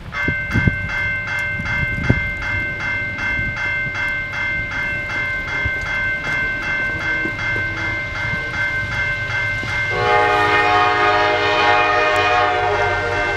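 A bell ringing steadily at about two to three strokes a second as a diesel freight train approaches. About ten seconds in, the locomotive's air horn sounds one long blast of about three seconds over the bell.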